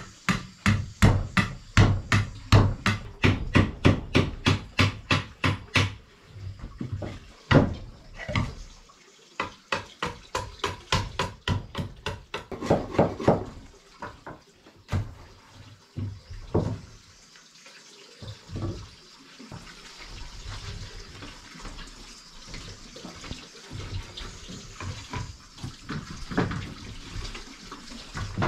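A machete blade shaving and chopping along the edge of a wooden board in quick, even strokes, about four a second for the first six seconds, then in shorter runs with pauses. Later come scattered knocks of wood being handled.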